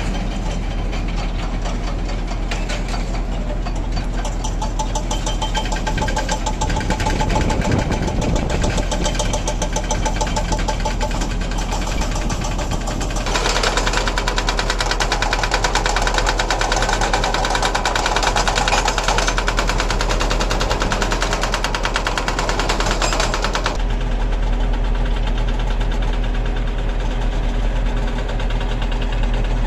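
Heavy-equipment diesel engine running with a steady, even beat, picking up louder and harsher for about ten seconds in the middle before settling back.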